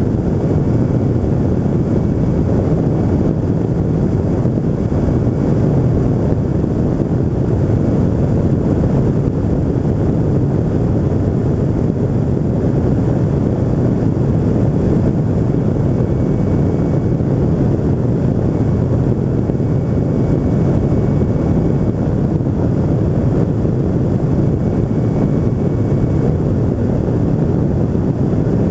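Rotax 582 two-stroke twin engine and pusher propeller of a Pegasus Quantum flexwing microlight running steadily in flight, mixed with wind rushing over the microphone.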